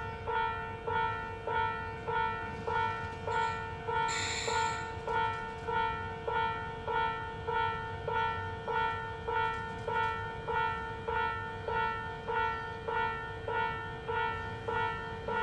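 Railway level-crossing alarm ringing steadily, an electronic bell tone repeating a little under twice a second, the signal that the crossing is closed for a train. A brief hiss cuts in about four seconds in.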